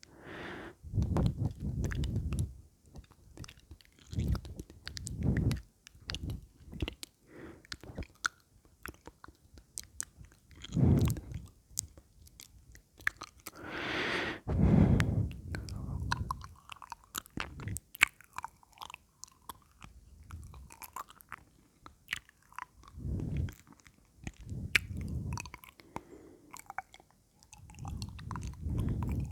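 Close-miked ASMR mouth sounds: wet clicks, smacks and muffled mouth noises in irregular groups a second or two long, with short pauses between.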